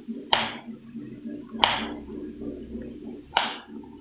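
Kitchen knife slicing through a carrot and striking the cutting board: three separate chops, roughly one and a half seconds apart.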